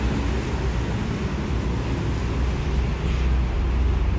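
Road traffic noise: a steady low rumble, with motorcycles passing.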